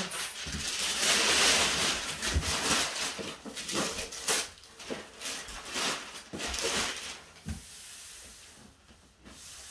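Gift-wrapping paper being torn and pulled off a large cardboard box: irregular crinkling and rustling, quieter near the end.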